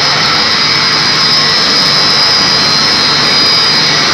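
Electric motor-driven pump sets running in a chiller plant room: a loud, steady hum with a high whine over it.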